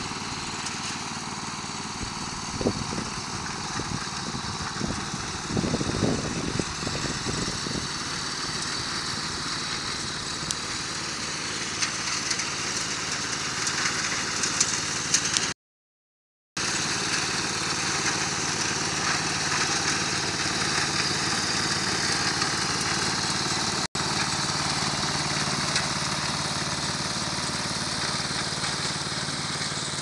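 Snapper rear-engine riding mower's gasoline engine running steadily as the mower drives over the grass, with some knocking early on. The sound breaks off for about a second halfway through.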